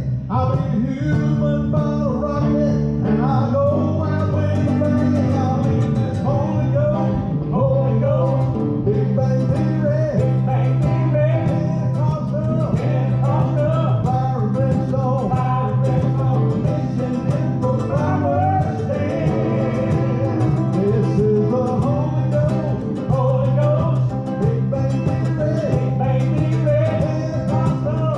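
Bluegrass gospel music on plucked string instruments, a mandolin among them, with a steady bass line underneath.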